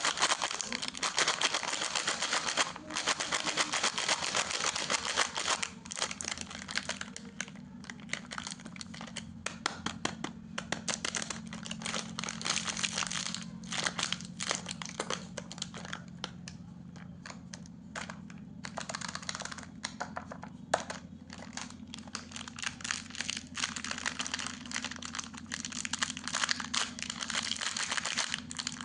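A biscuit packet's wrapper being handled and opened: dense crinkling and crackling in busy stretches with quieter pauses between, over a steady low hum.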